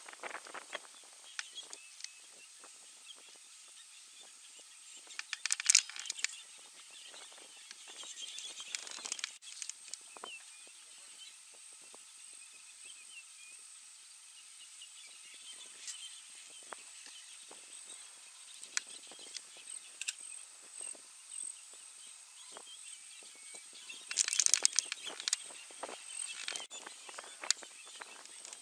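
Bush ambience: scattered crackles and snaps, with two louder bursts of crackling about six seconds in and again near the end, over a faint steady high-pitched tone.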